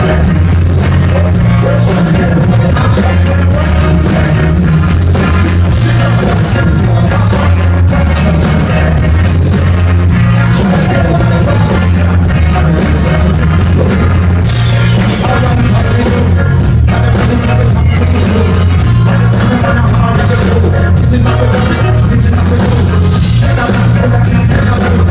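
Live band playing loud, bass-heavy music with a steady drum beat, with singing over it.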